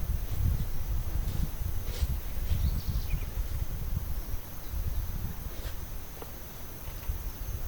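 Tropical forest ambience: a steady high-pitched insect drone over a low wind rumble, with a few short bird chirps about a third of the way in and the odd sharp click.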